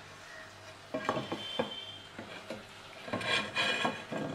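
Wooden spatula scraping and rubbing in a brass pan of dry-roasting grated coconut, in short spells about a second in and again near the end.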